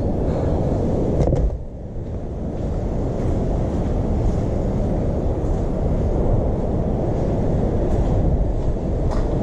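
Wind buffeting the microphone: a loud, steady low rumble with two brief clicks, one about a second in and one near the end.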